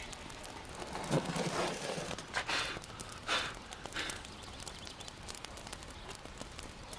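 A lidded steel baking tray slides and scrapes across the floor of a wood-fired brick oven, in a few scraping pushes between about one and four seconds in. The burning wood crackles faintly behind it.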